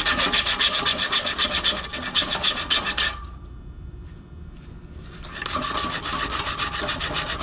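Sandpaper rubbed back and forth by hand on the blower motor's shaft at the squirrel-cage wheel hub, a run of quick rasping strokes. It cleans up the shaft so the blower wheel hub can slide off. The sanding stops for about two seconds midway, then starts again a little softer.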